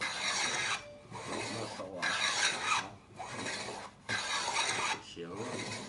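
Small wooden hand plane pushed along a board in repeated strokes, about one a second, shaving wood with a scraping hiss.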